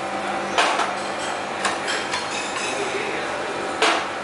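A flat turner knocking and clattering against a small frying pan as a dosa is lifted and turned, with two sharp knocks, one about half a second in and one near the end, and lighter taps between. A steady hum runs underneath.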